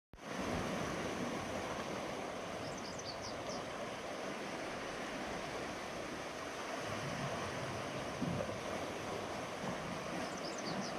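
Sea waves washing onto the shore, a steady rush of surf. A few short high chirps come about three seconds in and again near the end.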